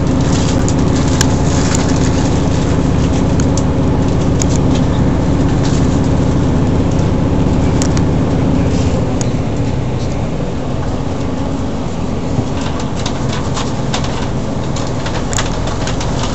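Cabin noise of a diesel passenger train running at speed: a steady rumble with a humming engine tone, and scattered clicks and rattles from the wheels and carriage. The rumble eases about ten seconds in, and the clicking gets busier near the end.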